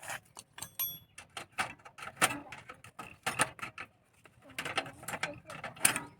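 Metal tool working the chain adjuster bolt on a bicycle's rear axle to tighten the chain: a run of irregular metallic clicks and taps, several a second, with a short lull about four seconds in.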